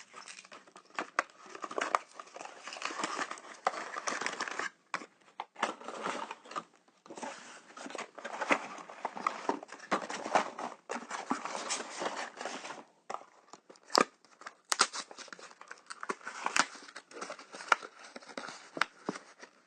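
Small packaging being torn open and crinkled by hand: irregular bursts of crinkling and tearing with sharp little clicks, broken by short pauses, as a blind-box surprise egg and its toy wrapping are opened.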